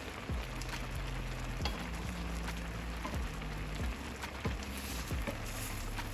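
Food sizzling and crackling in a hot pan, with a few sharp clicks, over background music with a stepping bass line.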